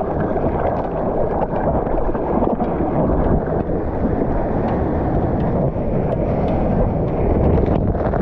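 Steady, muffled rush of water and wind on a GoPro camera as the surfer moves through the sea, with small splashes and knocks here and there.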